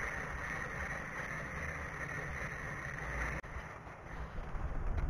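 Steady wind noise on the microphone, with a sudden short break about three and a half seconds in.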